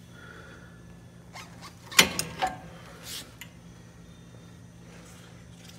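Metal clanks of a floor scrubber's side skirt and squeegee assembly being unlatched and swung open: two sharp clacks about two seconds in, then a brief scrape and a few small clicks, over a low steady hum.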